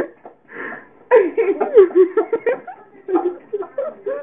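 A person laughing in a quick run of short bursts, loudest from about a second in.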